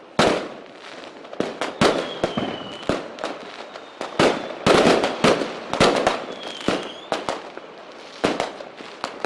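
Fireworks going off: an irregular string of sharp bangs with short crackling tails, and a couple of faint whistles that bend in pitch.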